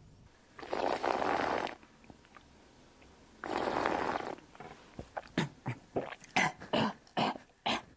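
A wine taster slurps air in through a mouthful of wine: two long slurps of about a second each, then a quick run of short slurping sucks, about four a second, as the wine is worked around the mouth to drive its aromas up to the nose.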